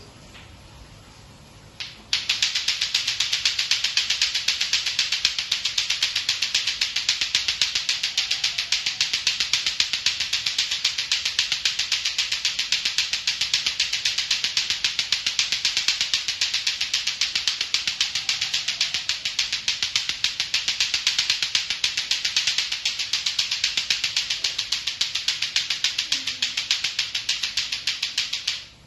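Latto-latto clackers, two balls on a string, clacking together in a rapid, steady run. It starts about two seconds in and stops just before the end.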